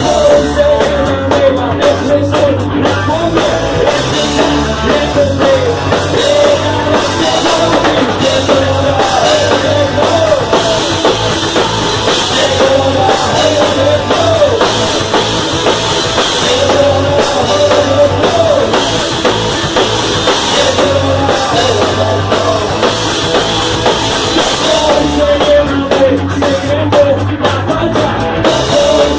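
Punk rock band playing live at full volume: a drum kit keeping a fast beat, electric guitar, and a singer on the microphone.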